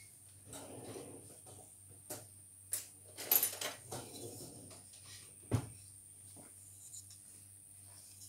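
Scattered light knocks and clicks over a steady low hum, with a cluster of louder clicks a little before the middle and one sharp knock about two thirds of the way through.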